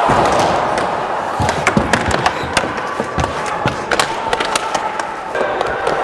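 Ice hockey play heard close up: skate blades scraping and carving the ice, with many sharp clacks of sticks and puck.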